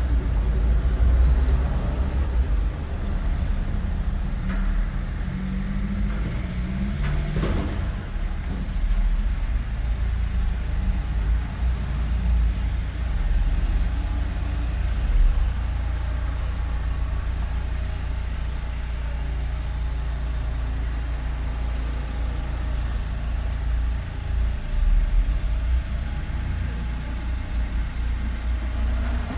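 Road traffic: motor vehicles passing with a steady low rumble. Around six to eight seconds in, one engine's note rises as it pulls away, with a brief high squeak.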